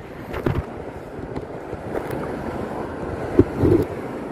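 Wind buffeting the microphone over small waves washing along the shallow shoreline, with a few short knocks and a couple of low thumps near the end.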